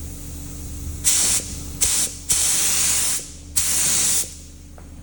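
Paint spray gun spraying paint in four bursts of hiss: a short one about a second in, a brief one soon after, then two longer passes of under a second each.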